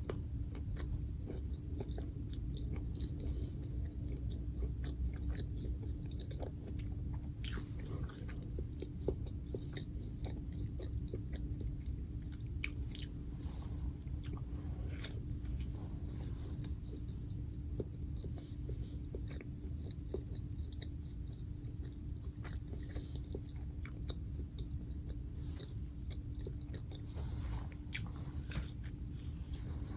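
A person chewing and biting into food, with scattered small crunchy clicks, over a steady low hum.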